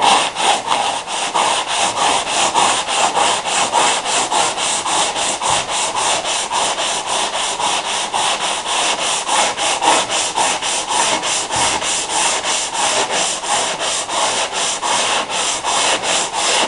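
Hand sanding with sandpaper on a foam-backed autobody sanding block, rubbed in quick, even back-and-forth strokes over a curved car quarter panel, about four strokes a second.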